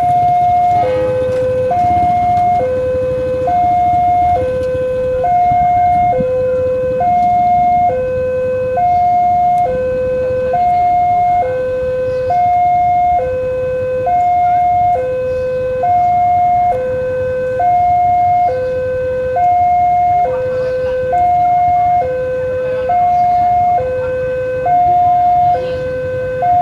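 Railway level crossing warning alarm sounding, two tones alternating low and high, each held just under a second, over a low rumble. It signals a train approaching the crossing.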